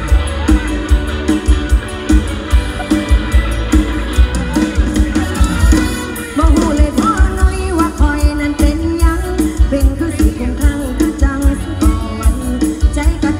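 A live Isan mor lam band plays loudly through the PA with a steady heavy drum beat. A singer's voice comes in about six seconds in.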